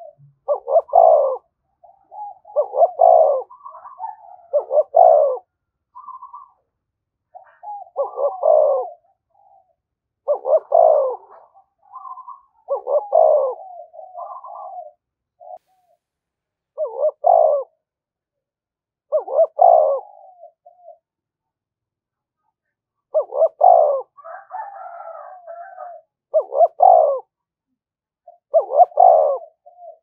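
Spotted dove cooing over and over in short repeated phrases, about one every two to three seconds, with a brief pause about two-thirds of the way through. These are the insistent challenge calls of a decoy dove provoking wild doves to come and fight.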